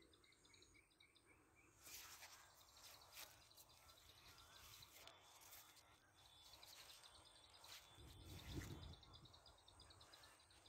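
Near silence outdoors in a crop field: faint, rapid, high-pitched chirping repeats throughout, with brief rustles as leaves brush the recording phone from about two seconds in, and a low bump near the end.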